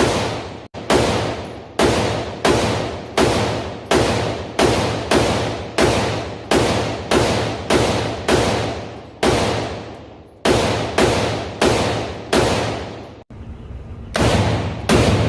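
AR-15-style rifle fired semi-automatically at a steady pace, about two shots a second, each sharp crack followed by a decaying echo. After a short break about 13 seconds in, the shots come faster.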